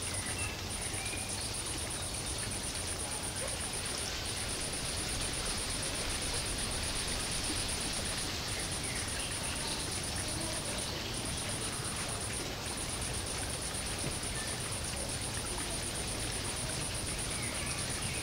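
Steady ambient background noise with a continuous high, rapid insect-like trill that breaks off and starts again several times.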